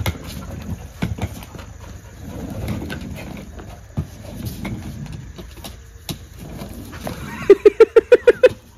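An animal's call near the end: about eight quick, evenly spaced pitched pulses in a second, the loudest sound here. Before it come faint low sounds and a few sharp knocks.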